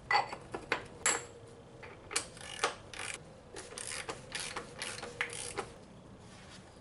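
A ratchet wrench clicking in a string of short, irregular strokes that stop shortly before the end.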